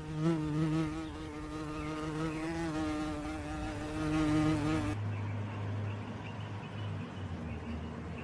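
A flying insect buzzing close by: a steady drone whose pitch wavers slightly. About five seconds in it changes abruptly to a lower, steadier hum.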